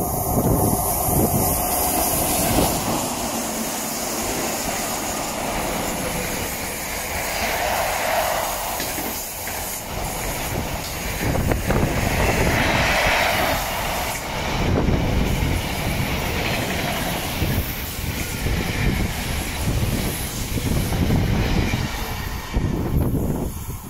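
Container freight train hauled by Freightliner Class 86 electric locomotives running through the station close by: a continuous rumble of steel wheels on the rails and the rattle of the container flat wagons passing.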